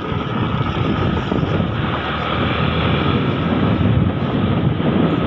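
Motorcycle running at a steady riding speed, with wind rushing over the microphone; it gets a little louder near the end.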